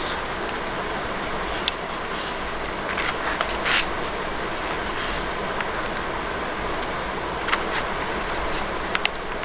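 Steady hiss of background noise, with a few light clicks and a short rustle about three and a half seconds in.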